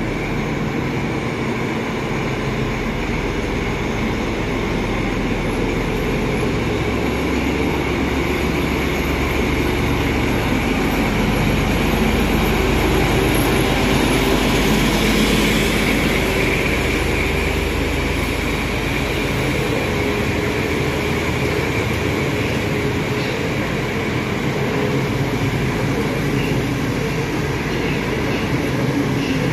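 PKP SU45 diesel locomotive running under load as it pulls a passenger train past, loudest about halfway through as the locomotive goes by. The rolling of the coaches' wheels follows it.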